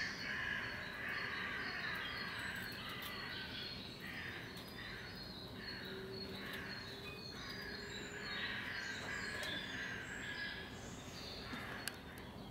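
Small birds chirping and singing together, a dense overlapping run of short high calls, with one sharp click near the end.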